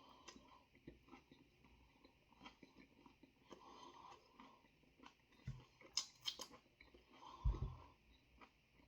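Faint close-up chewing and biting of overcooked, rather hard chicken fingers, with small crunches and clicks, a crackly bite about six seconds in, and two dull knocks, the loudest near the end.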